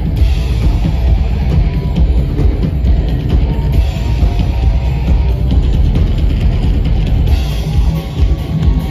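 Live industrial rock band playing loudly, with a pounding drum kit and bass drum under electric guitar and keyboards, heavy in the low end.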